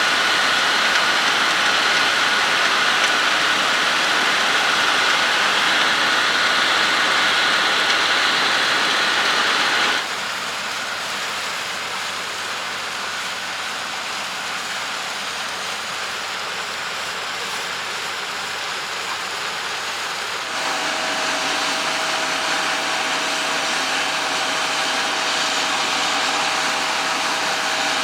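John Deere X9 1100 combine harvester running as it harvests barley: a steady mechanical din with a high held whine. The sound drops abruptly about ten seconds in, then rises again about twenty seconds in with a lower whine.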